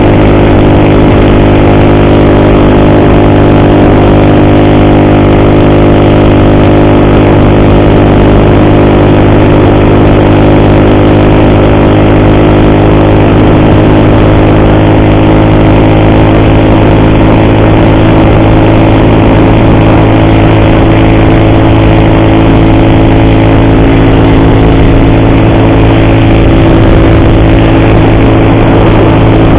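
Motorcycle engine running at a steady speed while riding, loud and even throughout.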